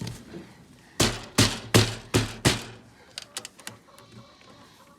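Five quick, loud knocks about a third of a second apart, followed by a few lighter clicks.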